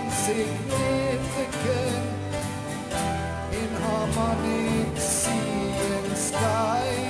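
Background music: a song with a singing voice over plucked and strummed guitar chords.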